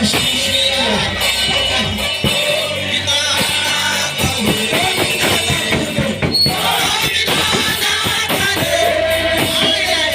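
Live worship music: voices singing over a band with drums and guitar, in a large hall.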